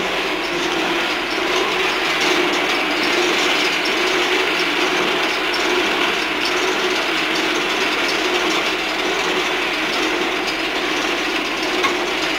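Hand-cranked wooden rope-maker's wheel being turned steadily to twist rope. It makes a continuous, even mechanical sound.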